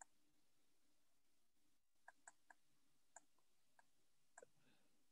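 Near silence broken by a handful of faint, sharp clicks of a computer mouse, scattered mostly over the second half.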